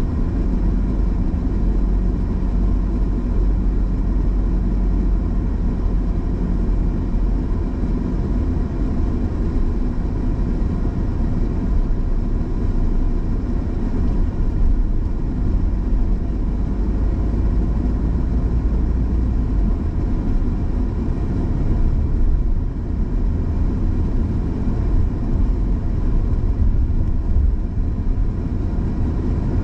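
Car driving along at a steady pace, with a continuous low rumble of engine and tyres on the road.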